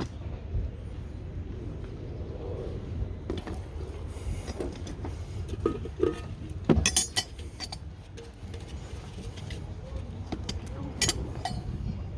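Small hard items clinking against each other as they are picked up and moved about, with a cluster of sharp clinks about halfway through and more near the end, over a low steady rumble.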